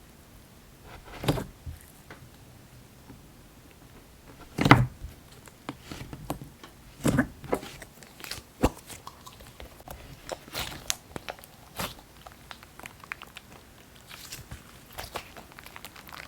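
Slime being squished and poked by hand: irregular sticky squelches with small clicks and pops, the loudest squish about four and a half seconds in.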